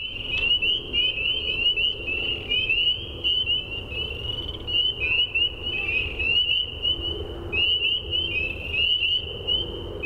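A dense chorus of frogs calling: many short, high peeps, each sweeping quickly upward, overlapping continuously, with a low steady rumble underneath.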